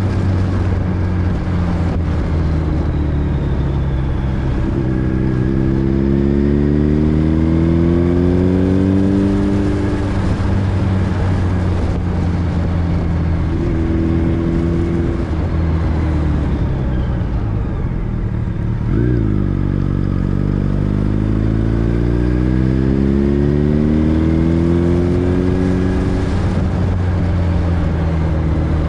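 Vehicle engine running under way. It climbs slowly in pitch as it accelerates, from about four seconds in and again just past the middle, and runs steadily between the two climbs.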